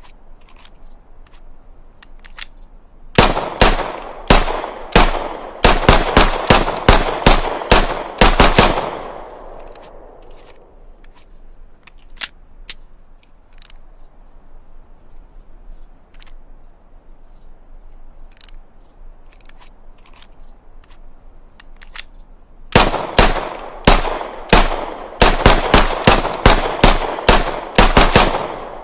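Browning Hi-Power pistol firing two strings of rapid shots, each about a dozen shots at roughly three a second, with a pause of over ten seconds between. The first string rings on briefly after the last shot.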